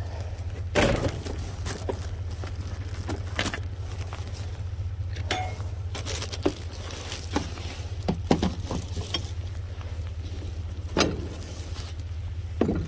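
Rummaging and stepping through a dumpster full of discarded household goods: scattered knocks, clinks and rustles as items are shifted. The loudest knocks come about a second in and near the end, over a steady low hum.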